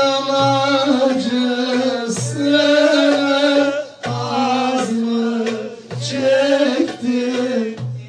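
A man sings a Turkish bozlak in long, held, wavering notes, accompanied by a bağlama (long-necked saz) and a hand drum struck a few times.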